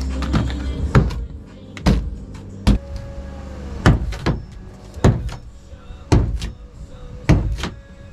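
A hand tool striking and chopping into a fiberglass boat floor, sharp knocks roughly once a second at uneven spacing, breaking out the rotten, waterlogged core beneath.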